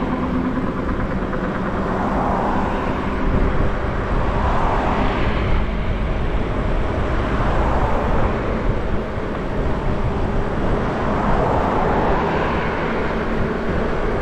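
Wind rushing and buffeting over the microphone of a moving e-bike, with road traffic passing alongside and swelling by every few seconds.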